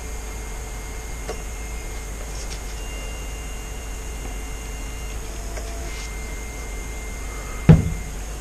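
Steady low background hum with a few faint, thin high whines, and one sharp knock with a low thud near the end.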